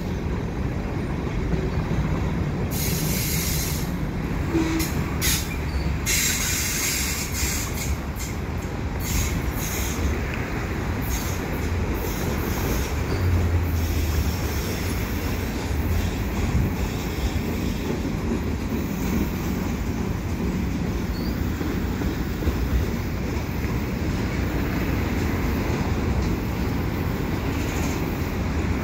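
Slow-moving mixed freight train's cars rolling past: a steady rumble of steel wheels on the rails, with a few short bursts of high screeching from the wheels in the first several seconds.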